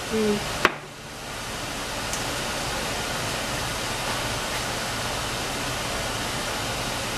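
A sharp click as a glass oil bottle is set down, then a steady, even hiss of kitchen background noise around a heating gas stove.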